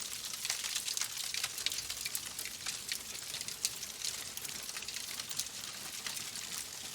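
Wood fire crackling: logs burning with a steady hiss and frequent small pops and snaps.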